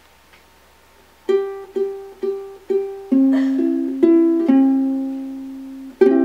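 Makala ukulele played as a song intro. After about a second of quiet come four short plucked notes of the same pitch, about half a second apart, then longer-ringing lower notes, and a chord struck near the end.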